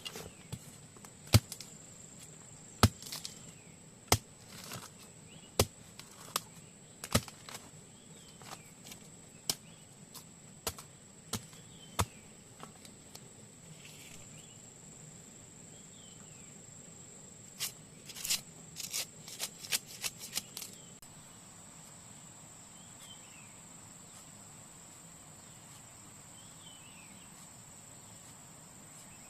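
Sharp chopping strikes, about one every second and a half for the first twelve seconds, then a quicker run of lighter strikes a little after halfway. Insects drone steadily throughout, and birds give short falling chirps.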